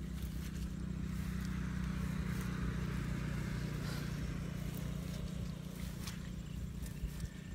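A distant engine running steadily with a low drone. A hiss swells and fades in the middle, with a few faint clicks.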